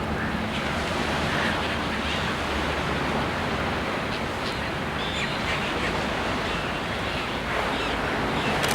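Steady rushing outdoor noise, with a few faint, short bird calls now and then.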